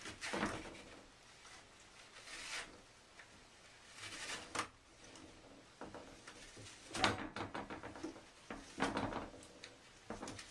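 A cat pawing at a toilet paper roll on a metal stand holder, the roll turning on its spindle and the paper rustling as it pulls off, in several short bursts, the loudest two about seven and nine seconds in.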